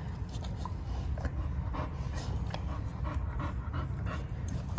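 Pregnant pit bull–type dog panting in quick, even breaths, about two to three a second, a sign of a bitch in early labour.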